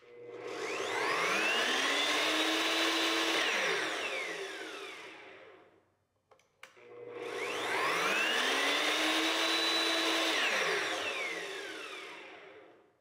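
Evolution EVOMAX metal-cutting chop saw started and stopped twice without cutting. Each time the motor's whine rises gradually as the soft start brings the blade up to speed, holds steady for about two seconds, then drops away to a stop within about two seconds as the electronic brake slows the blade.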